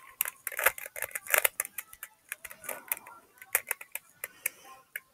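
Plastic Rubik's cube being turned by hand: a quick, irregular run of sharp clicks as its layers snap round.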